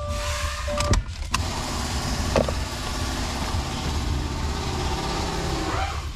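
A click, then an electric motor in the car whirring steadily for about five seconds. Its pitch drops as it winds down near the end.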